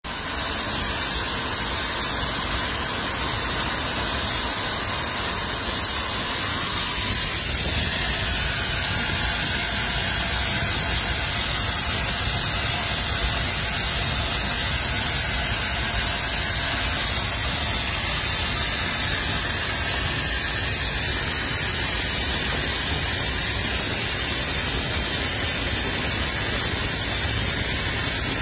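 Steady, unbroken steam hiss on the footplate of the NGG11 narrow gauge Garratt steam locomotive under way, over a low running rumble.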